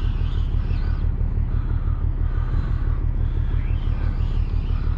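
Steady low rumble with a faint higher wavering sound over it, unchanging throughout.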